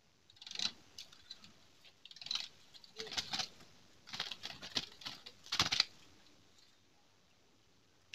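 Sooty-headed bulbul (trucukan) singing in about five short, bubbly bursts, then falling quiet for the last two seconds.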